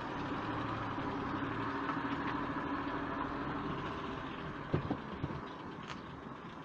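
Vehicle engine running at low speed, heard from on board as a steady low hum that eases off, with a short cluster of knocks a little under five seconds in.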